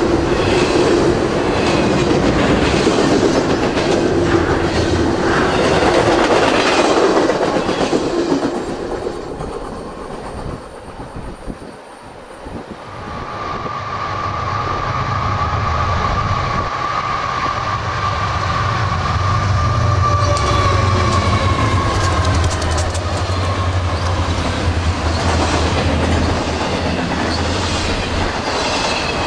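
Union Pacific double-stack container freight train rolling past, its wheels clattering over the rail joints. The noise dips for a few seconds about a third of the way in. It then builds again with a steady low drone and a high, steady wheel squeal lasting several seconds.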